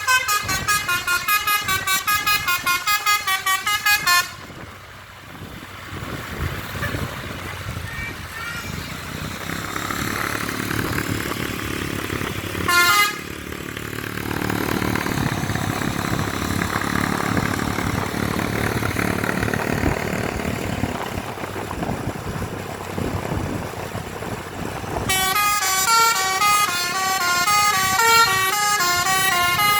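Telolet bus horn, a basuri multi-tone horn, playing a quick stepping melody of several notes at once. It stops about four seconds in, leaving the bus engine running with street noise and one short horn blast in the middle. The tune starts again near the end.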